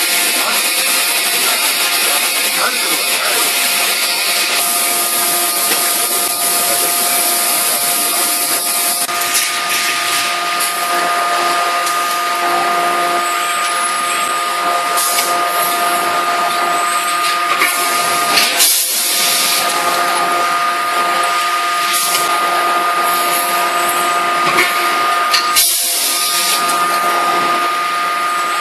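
Hydraulic forging hammer's power unit running steadily: a constant machine hum with two steady tones over a hiss. Two brief knocks come about two-thirds of the way through and again near the end.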